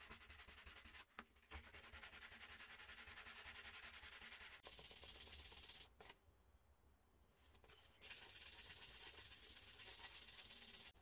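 Abrasive pad rubbed rapidly back and forth over a small metal bicycle-lamp part by hand: a steady scratchy rasp. It breaks off briefly about a second in, eases off around six seconds and picks up again about two seconds later.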